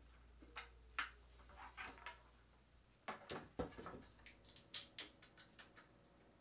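Faint, scattered taps, clicks and knocks of objects being handled, with a denser clatter about three seconds in.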